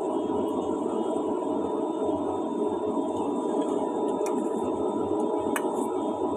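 A steady hum with a few light clicks of chopsticks against a stainless steel pot.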